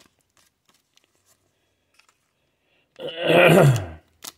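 Faint clicks of trading cards being handled, then about three seconds in a man's loud, low wordless vocal sound lasting just under a second, falling in pitch, followed by a single sharp click.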